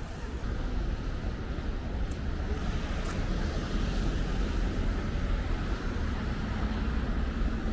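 Steady outdoor background noise: a deep, fluctuating low rumble with a hiss above it, swelling slightly midway, with no single distinct event.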